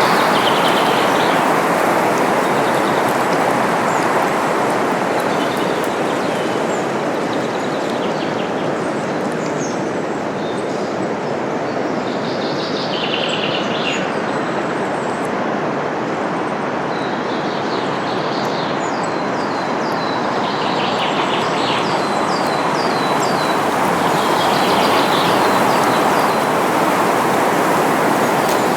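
Steady wind rushing through forest leaves, swelling and easing slowly, with small birds chirping over it; about two-thirds of the way through one bird gives a quick run of short falling notes.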